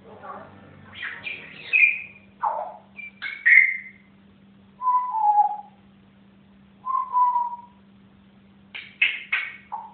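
African grey parrot whistling: a string of short whistles and chirps, with two longer whistles that slide down in pitch, and a quick run of calls near the end.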